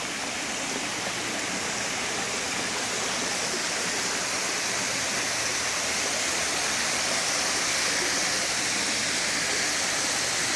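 Steady rush of falling water from a pool spa, growing slightly louder.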